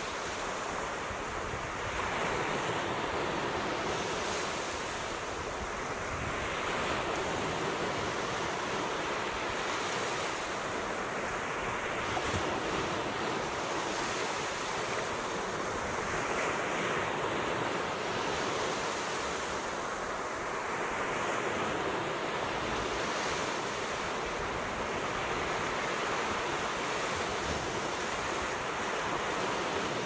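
Ocean surf breaking and washing up a sandy beach. The hiss of the water swells and eases with each wave, about every four to five seconds.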